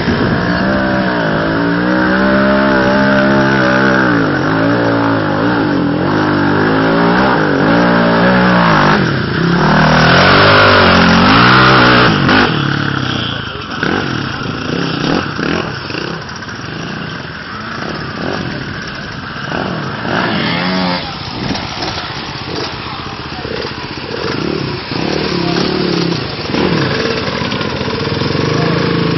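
Quad bike (ATV) engine revved up and down over and over as it works through deep mud and water. After about twelve seconds the engine noise drops and turns rougher, with revving picking up again near the end.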